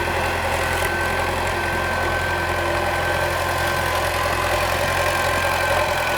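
T-40AM tractor's D-144 air-cooled two-cylinder diesel engine idling steadily, with a thin, steady high whine over it.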